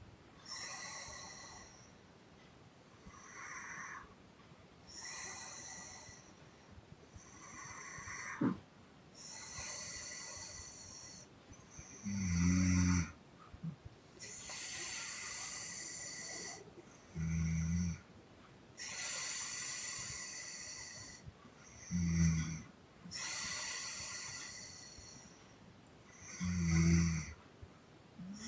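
A sleeping woman snoring and puffing. Long, airy puffing breaths come every few seconds. From about twelve seconds in they alternate with short, loud, low snores, four in all, about five seconds apart.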